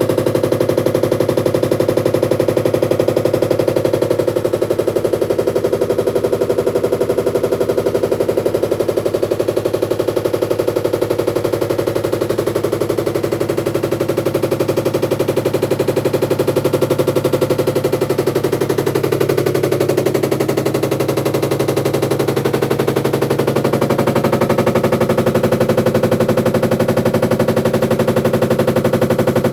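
Samsung top-load washing machine making a loud, fast, continuous rattling knock, a rapid unbroken run of hits: an abnormal running noise that points to a fault in the machine.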